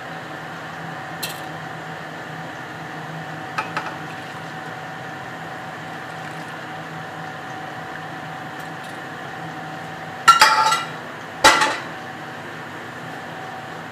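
Dishes clinking as the coffee is dished out: a few light clicks early, then two loud, ringing clinks about ten and eleven and a half seconds in, over a steady faint hum.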